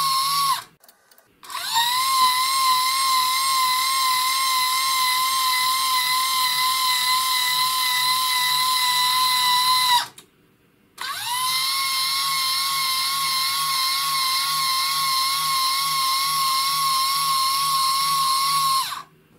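AiResearch linear actuator's small 27 V DC motor and gearbox running under power with a steady high whine, driving the rod along. There are three runs, a short one and then two of about eight seconds each. Each briefly rises in pitch as it starts and cuts off abruptly.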